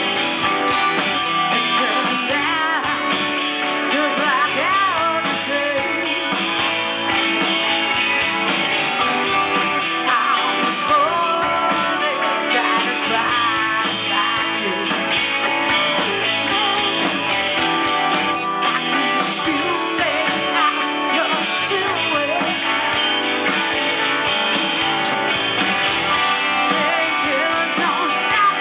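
Live blues-rock band playing loud and steady: electric guitars, bass and drums, with a woman singing the lead vocal.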